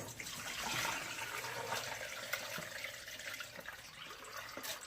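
Water pouring off soaked pasta as it is drained, a steady splashing pour that is strongest about a second in and gradually tapers off.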